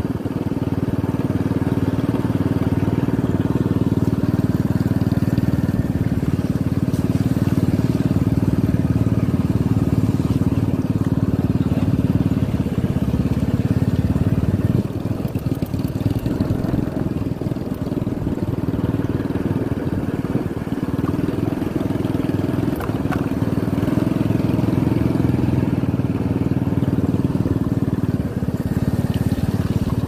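Motorcycle engine running steadily at low speed over a muddy dirt track, easing off briefly about halfway.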